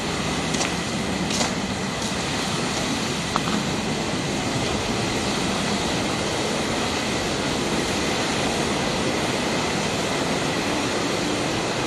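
A steady, even rushing noise with a few faint clicks in the first few seconds.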